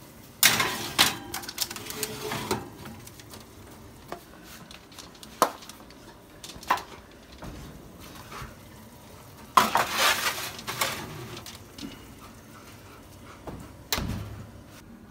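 Metal baking sheet and oven wire racks clattering and scraping as a tray is slid in and out on the racks, in two bursts with single clicks between them. A low knock near the end as the oven door shuts.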